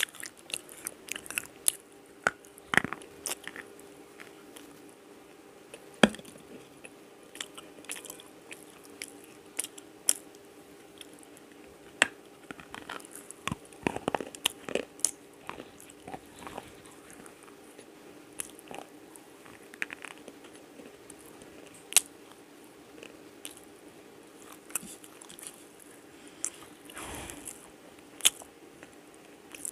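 Black slate pencils being bitten and chewed close to a clip-on microphone: irregular sharp, gritty crunches, with a few much louder snaps spread through.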